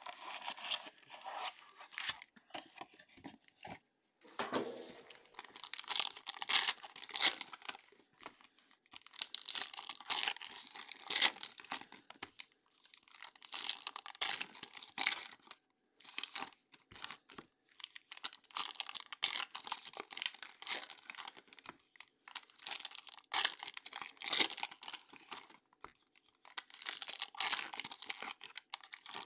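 Trading card packs of Topps Chrome Sapphire being torn open and their wrappers crinkled by hand, in irregular bursts of tearing and rustling with short pauses between.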